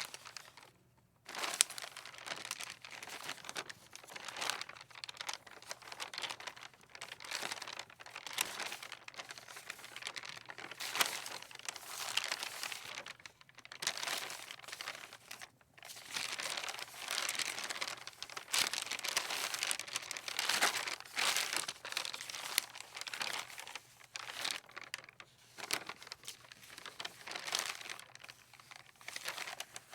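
Loose sheets of paper rustling and flapping in the wind, in irregular crackling swells that rise and fall, with a short lull about a second in.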